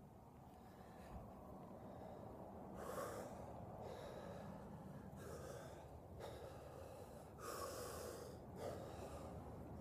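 A man doing a forceful breathing exercise: about six sharp, hissing breaths, spaced a second or so apart, starting a few seconds in, with the longest one near the end.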